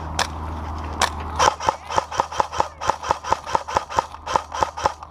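Airsoft gun firing a rapid string of shots, about six a second, after a couple of single shots near the start.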